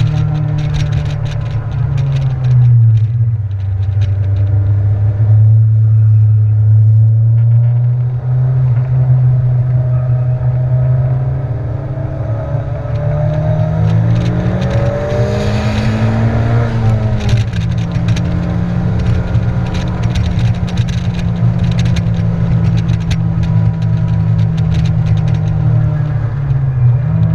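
Honda Civic's four-cylinder engine under load at track speed, heard from inside the cabin, with wind and tyre noise throughout. The engine note drops a few seconds in, climbs in revs about halfway through before falling away, and drops again near the end.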